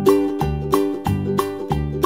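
Background music: bright plucked-string tune, ukulele-like, with a steady bouncy beat.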